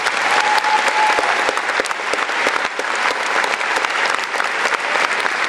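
A large audience applauding: a dense, steady clatter of many hands clapping, with a brief held tone about half a second in.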